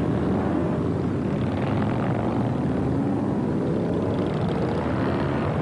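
A large pack of motorcycles riding past together, many engines running at once in a steady din, with engine notes rising and falling as individual bikes go by.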